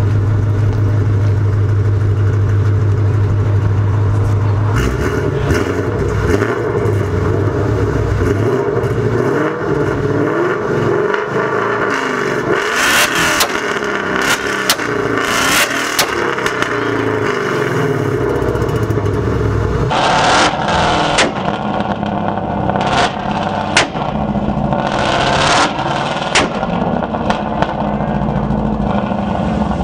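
An S550 Ford Mustang's engine idles steadily for about five seconds, then is held on a two-step launch limiter. Its exhaust stutters with a choppy string of sharp pops and bangs, which are strongest in the second half.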